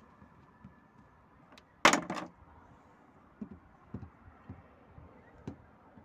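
A sharp double clack about two seconds in, then a few soft, short knocks: plastic Schleich toy horse figures knocking against the ground and jump obstacles during a jumping round.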